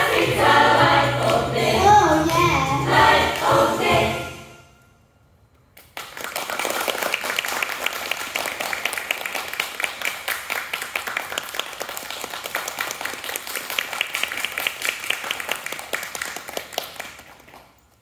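Choir singing into microphones, ending a song and fading out about four and a half seconds in. After a second of quiet, an audience applauds for about eleven seconds, the clapping tailing off near the end.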